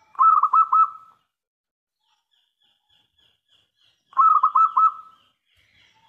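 Zebra dove (perkutut) cooing: two phrases about four seconds apart, each a quick run of about four notes.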